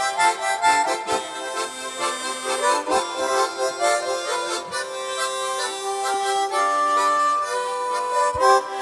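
Harmonica ensemble playing a tango in several parts, with held chords under a moving melody.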